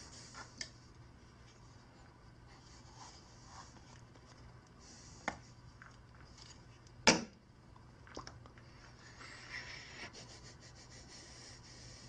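Soft rubbing and rustling of cushion fabric and stuffing being handled and packed, with a small click about five seconds in and one sharp knock about seven seconds in.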